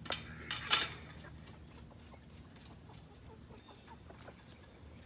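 Chickens clucking softly in a coop, with a couple of sharp knocks or rustles in the first second.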